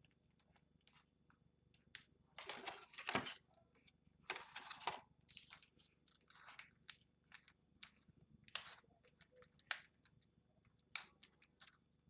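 Packaging being handled and opened: short crinkling rustles with scattered small clicks and taps, the loudest two a few seconds in.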